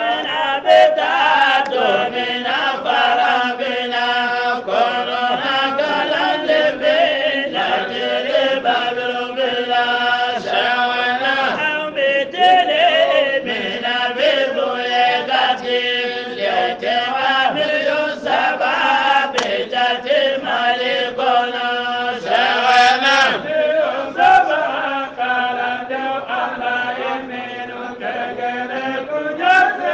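Voice chanting a kassida, an Islamic devotional poem, in long held melodic phrases.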